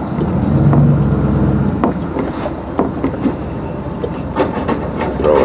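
Dodge Ram pickup truck running and rolling slowly, heard from inside the cab as a steady low engine hum, with occasional short knocks.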